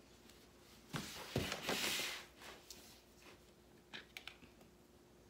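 Gift boxes being handled and set down on a wooden floor: two short knocks about a second in, a brief rustling scrape just after, then a few small clicks near four seconds in from a small plastic case being handled.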